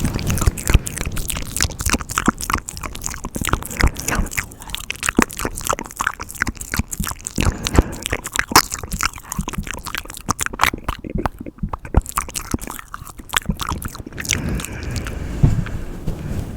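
Close-miked ASMR mouth sounds: a fast, dense run of wet clicks and smacks from the tongue and lips. They thin out near the end.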